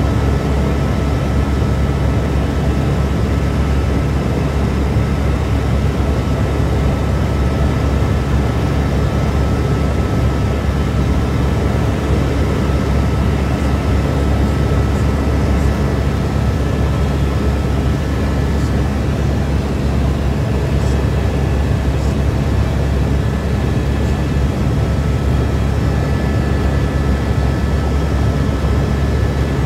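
Helicopter engine and rotor noise heard from inside the cabin: a loud, steady low drone with a faint steady high whine above it.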